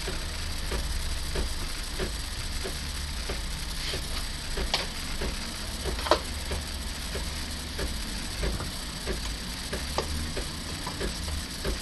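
Home espresso machine steaming milk through its steam wand: a steady low hum and hiss with regular light ticks, about one or two a second.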